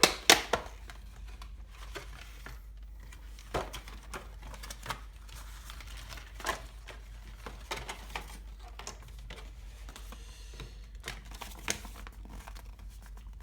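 Plastic packaging crinkling and rustling with scattered clicks and taps as a car-stereo wiring harness is taken out of its package, the sharpest clicks just after the start.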